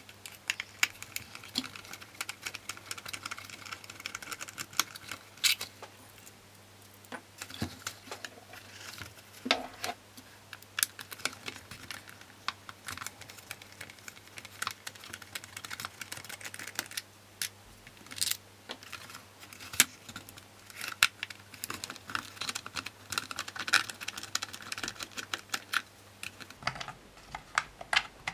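Irregular small clicks and scrapes of a screwdriver tip and fingers against the hard plastic of a Dyson V10 cyclone assembly as it is taken apart.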